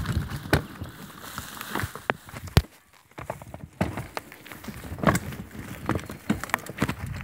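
Mountain bike rattling and knocking as it rolls fast over a bumpy dirt singletrack, with tyre noise on the ground. The noise dips briefly about three seconds in.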